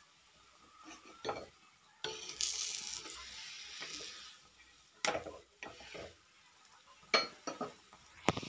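Metal spatula clicking and scraping on a dosa griddle (tawa) as a frying parotta is lifted and turned. Hot oil sizzles for a couple of seconds in the middle.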